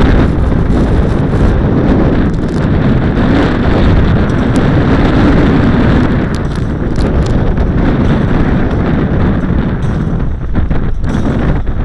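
Wind rumbling on the microphone over a fire tanker's running engine, a loud unbroken noise with a few short clicks and rattles in the second half.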